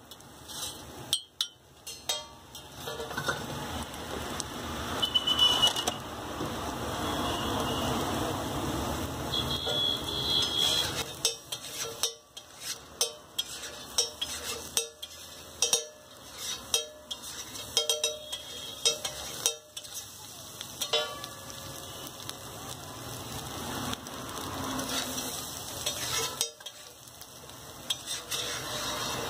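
Scrambled egg sizzling on a flat metal griddle while a metal spatula scrapes and chops through it. Through the middle and again near the end come runs of sharp taps as the spatula's edge strikes the griddle.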